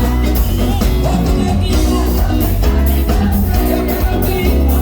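Band music with a heavy bass line, regular drum beats and a singing voice over it.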